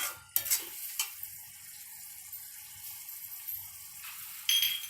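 Bottle gourd sabzi sizzling in a frying pan, with a few knocks of a stirring spoon in the first second. Near the end there is a short, ringing metal clink.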